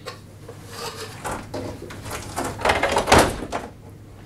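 Plastic battery box being handled and set down on a table: a few light plastic knocks and rattles, the loudest cluster about three seconds in.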